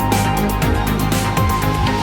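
Electronic background music with a steady, fast beat and a pulsing bass line.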